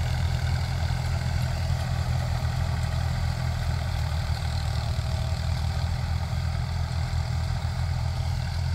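Compact diesel tractor engine running steadily with a low, even drone, with no change in engine speed.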